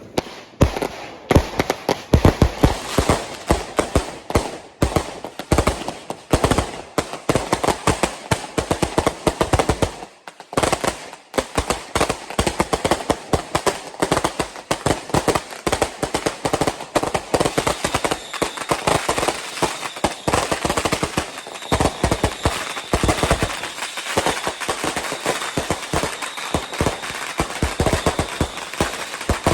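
Firecrackers and fireworks going off in a dense, rapid string of sharp bangs, with a brief lull about ten seconds in.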